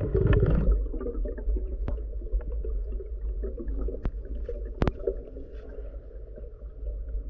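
Underwater sound heard through a diving camera's housing as a freediver descends: a rush of bubbles and water in the first second, then a muffled low rumble of water with faint crackling. A few sharp clicks break through, the loudest about five seconds in.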